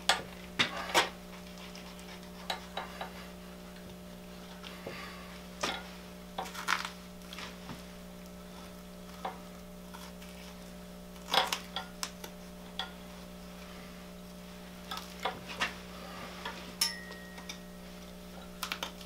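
Scattered short clicks and scrapes of a butchering knife working against bone and joint as a deer's hind quarter is cut free along the sacrum, over a steady low hum.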